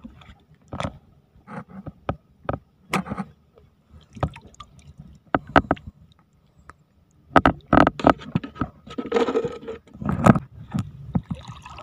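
Shallow seawater splashing and sloshing in short, irregular bursts as someone wades and stirs the water, growing busier and louder past the middle.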